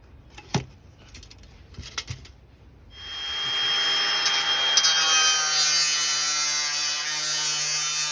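A few knocks as the PVC pipe is handled, then about three seconds in an angle grinder starts and cuts through the 90mm PVC stormwater pipe with a steady high-pitched whine and grinding, stopping abruptly at the end.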